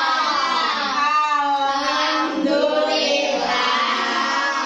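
Children singing a slow melodic tune, with long held notes that glide up and down.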